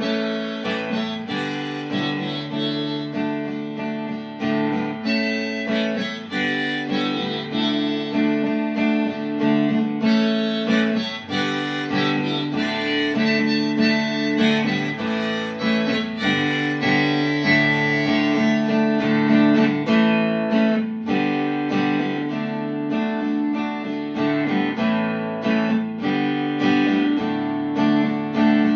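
Instrumental break in a country song: acoustic guitar strumming under a harmonica carrying the melody.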